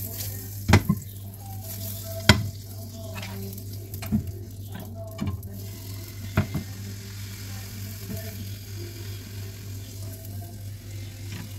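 Fat and pancake batter sizzling in a hot nonstick frying pan, with a few sharp clicks and knocks of a spatula and ladle against the pan and the steel mixing bowl.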